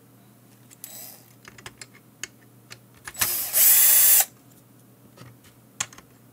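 Electric screwdriver backing a screw out of a multimeter's circuit board. Its motor whines for about a second about three seconds in, rising in pitch as it spins up, then stops, with light clicks of the bit and handling around it.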